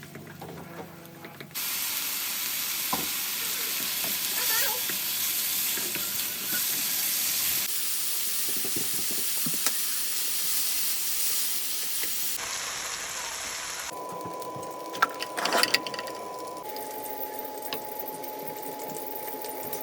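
Food sizzling in a hot frying pan, heard in a few short cut clips. Later comes a steady single tone with a few sharp clicks.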